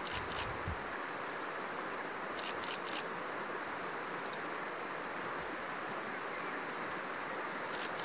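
Steady rush of a fast-flowing river over stones, with a few faint clicks about two and a half seconds in.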